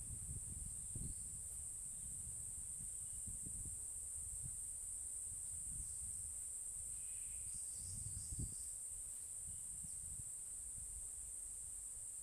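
Steady high-pitched insect chorus from the surrounding rainforest, with a faint, uneven low rumble underneath.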